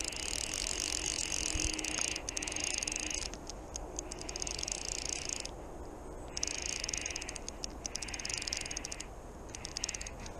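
Fly reel's click-and-pawl ratchet buzzing in about six bursts of rapid clicks with short pauses between, as the reel is wound to bring in line on a hooked fish.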